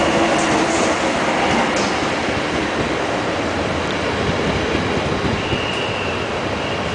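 Fyra train, an electric locomotive and its coaches, rolling into the station past the platform, slowing as it arrives. A steady rumble of wheels on rail, with a brief high squeal about five and a half seconds in.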